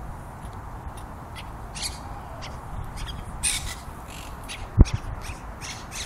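A flock of wild monk parakeets (Quaker parrots) calling with short, harsh squawks, repeated irregularly. There is a single sharp thump a little before the end.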